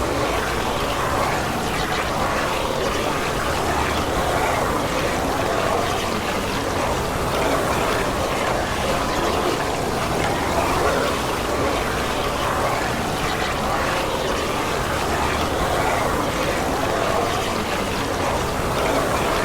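Sound effect of a crowd of zombies snarling, many voices overlapping into a steady, dense mass with no pauses.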